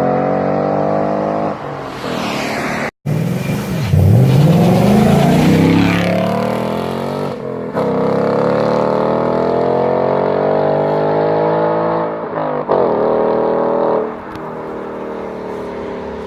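2018 Ford Mustang GT's 5.0-litre V8 exhaust under hard acceleration: the note climbs through the revs, drops at each gear change and climbs again, several pulls in a row. It breaks off briefly about three seconds in, and near the end settles to a lower, steadier drone.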